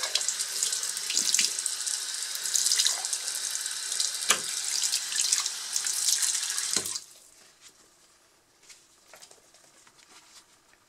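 Tap water running and splashing into a sink over a banknote held under the stream in rubber-gloved hands; the flow stops abruptly about seven seconds in, leaving only faint handling sounds of the wet note.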